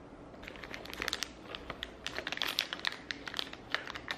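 Crinkly plastic wrapper of an individually packed mochi being handled and pulled from its cardboard box, giving irregular crackles that start about half a second in.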